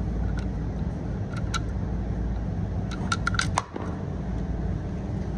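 Small metal clicks from a shotgun's controls being handled: a couple about a second and a half in, then a quick run of clicks around three seconds in. A steady low hum runs underneath.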